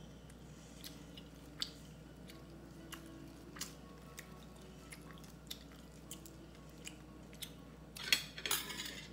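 Fresh leaf lettuce being handled and stacked in the hand: faint, scattered crisp crackles from the leaves, then a louder crinkly rustle about eight seconds in as a bunch is gathered.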